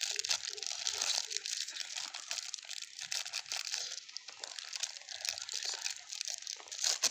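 Foil snack packet crinkling as it is handled and snipped open with scissors, a continuous rustle of many small crackles.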